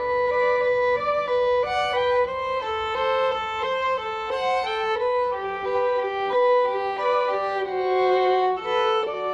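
Background music: a solo violin playing a flowing melody, one note after another.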